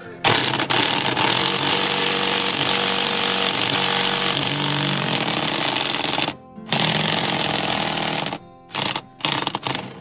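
Electric impact wrench hammering on an impact bolt-extractor socket to break loose a rounded-out Torx seat-belt anchor bolt. There is one long run of about six seconds, a brief pause, a second run of under two seconds, then two short bursts.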